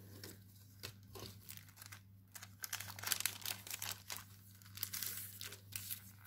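Clear plastic packaging sleeve crinkling and rustling as a plastic stencil is handled and slid out of it, in irregular bursts that get busier in the second half.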